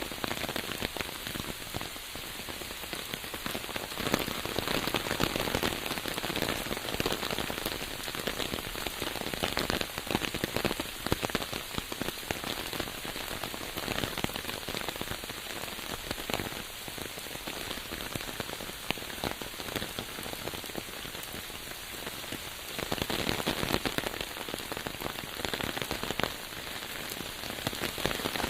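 Steady rain falling on a surface, a dense patter of countless drops, heavier for a few seconds near the end.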